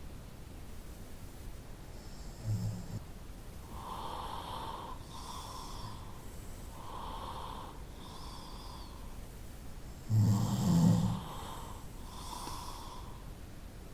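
A person snoring: a short snort about two and a half seconds in, a run of softer breaths, then a louder snore in two pulses about ten seconds in.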